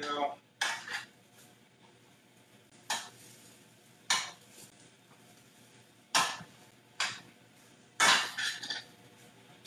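Kitchen utensil, likely tongs, knocking and scraping against a sauté pan as chicken and bok choy are tossed: about six separate short clatters, the longest about eight seconds in.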